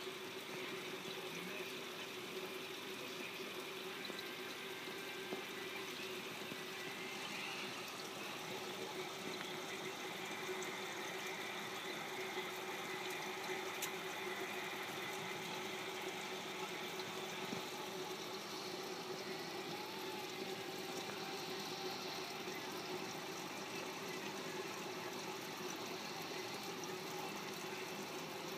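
Aquarium filter running: a steady trickle of moving water with a faint steady hum underneath.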